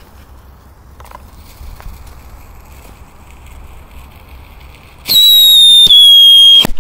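Whistling 'mouse' firecracker going off: a loud, high whistle that drops slightly in pitch for about a second and a half, with a brief break midway, ended by a sharp crack near the end.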